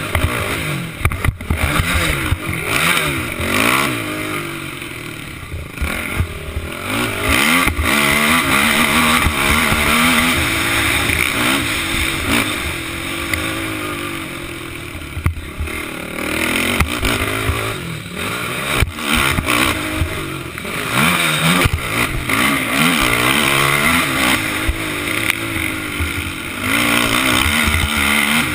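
Racing quad's engine revving hard and easing off again and again as it accelerates out of turns and shifts through the gears, heard up close from the rider's helmet.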